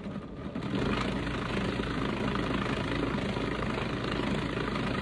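Food processor motor running steadily, its blade grinding half-frozen pork into a smooth sausage paste. It starts about a second in.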